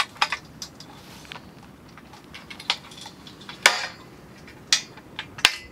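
Aluminium mounting rails and pivot plate clinking and knocking against each other as the leg is worked into place to line up the bolt holes: a scatter of sharp, irregular metal clicks, the loudest about three and a half seconds in.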